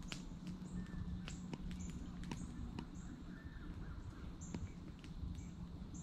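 Woodland riverbank at dawn: short, high, thin bird call notes repeating every second or so, scattered sharp ticks and taps, and a low steady hum underneath.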